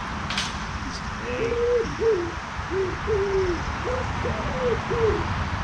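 A pigeon cooing. It is a run of short, low, soft notes, about two a second, starting about a second in.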